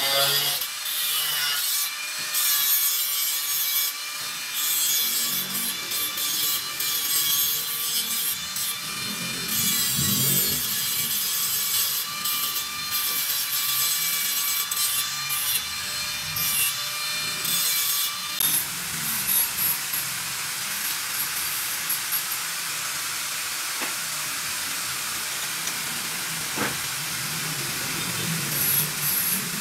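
Angle grinder running and grinding stainless steel tube, a steady whine with a grinding hiss. The whine stops about two-thirds of the way through, leaving a steady hiss.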